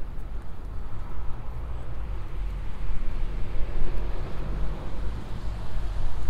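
Bicycle in motion: a steady low rumble of tyres rolling and wind buffeting the microphone.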